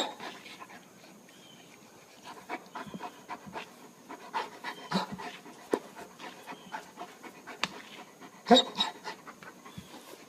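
A dog panting in short, irregular breaths, with a brief sharp sound right at the start and a louder one about eight seconds in.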